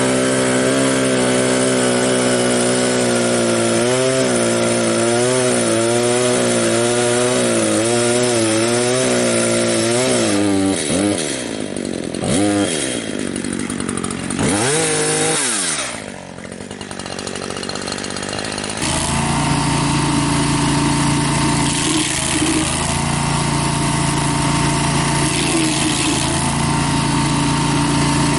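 Small gasoline engine running hard, its pitch wavering and dipping as it works under load and is revved up and down several times. About two-thirds of the way through it settles into a steadier, rougher running sound.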